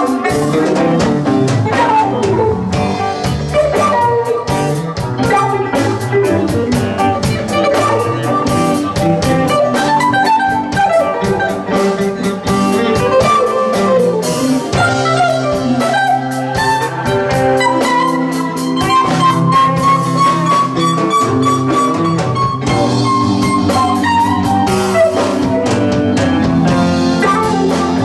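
Live band playing an instrumental jam: an electric guitar taking the lead over drum kit and keyboard. About halfway through, a single long held note rises and falls gently for several seconds.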